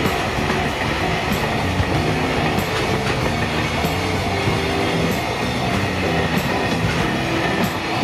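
Container freight train's flat wagons rolling past, wheels clattering over the rail joints, with the tail of the train clearing the crossing near the end. A level-crossing alarm is ringing, its warning lights flashing.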